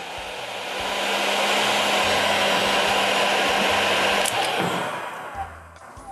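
Electric heat gun blowing hot air: a steady rush of air over a low motor hum that grows louder, then shuts off with a click about four seconds in, the airflow dying away over the next second.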